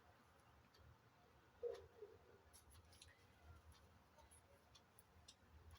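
Near silence: room tone with a few faint, scattered clicks and one slightly louder short sound about two seconds in.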